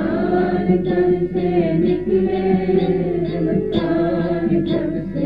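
Kirtan chorus: a group of voices singing the response line together in a devotional chant, with short regular strikes about twice a second keeping the beat.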